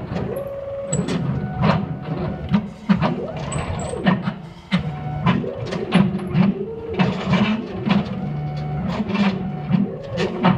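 ShopBot CNC router's stepper motors driving the axes through an air cut: a whine that keeps rising and falling in pitch as the moves speed up and slow down, with frequent short clicks.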